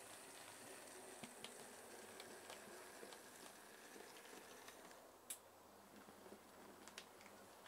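Near silence: the faint running of a Bachmann GWR 4500 Prairie tank model locomotive, a thin motor whine that fades about four seconds in, with scattered light clicks from the wheels on the track.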